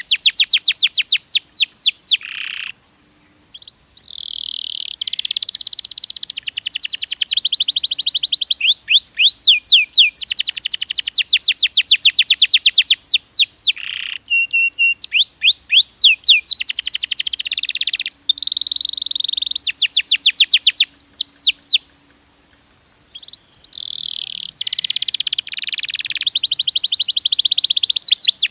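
Domestic canary singing a long song of fast rolling trills, each a rapid run of high, downward-sweeping notes, switching from one trill to the next, with two short pauses.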